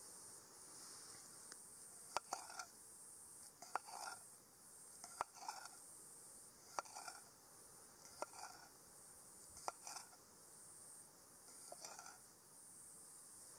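Steady, faint high-pitched insect chirring, broken by a sharp click about every one and a half seconds, each followed by a short, softer mid-pitched sound.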